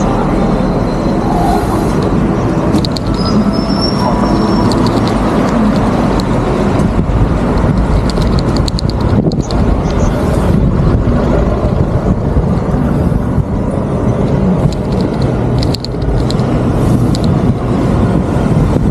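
Steady low rumble of road and traffic noise, with a few light clicks and squeaks over it.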